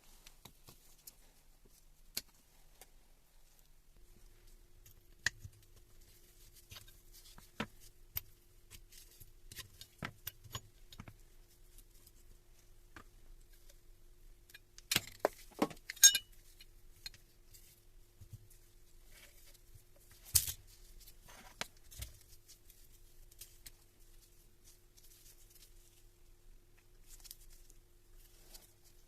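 Metal parts and tools clinking and tapping, the scattered handling sounds of a Hilti TE 1000 breaker being taken apart on a workbench, with a quick cluster of clinks about halfway through. A faint steady hum comes in about four seconds in.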